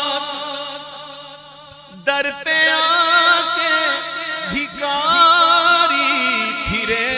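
Male voice singing an Urdu naat unaccompanied, holding long ornamented notes with a wavering melody over a steady low drone. The line fades out about a second in, and the voice comes back sharply at about two seconds.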